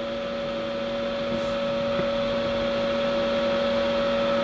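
Hot air rework station blowing: a steady whir of air with a low hum, growing gradually louder.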